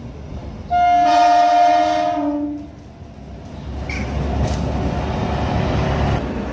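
Passenger train sounds a loud, steady horn for about two seconds, then comes closer with a rising rumble of wheels and running noise, which cuts off abruptly near the end.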